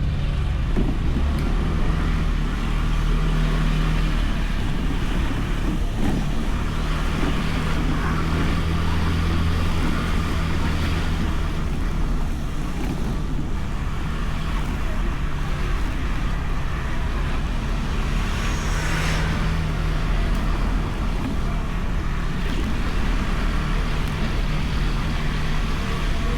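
Honda Beat scooter's 110 cc single-cylinder engine running steadily under way, its pitch shifting a little with the throttle. It is heard over continuous road and wind noise on the bike-mounted microphone.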